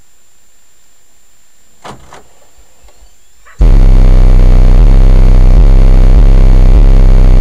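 Two light knocks, then about three and a half seconds in, a car audio system with a 15-inch and a 10-inch subwoofer and two 6.5-inch speakers starts playing bass-heavy music very loudly, a deep bass line with a steady beat.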